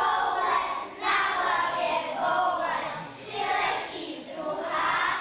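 A group of young children singing together in unison, in short phrases of about a second each.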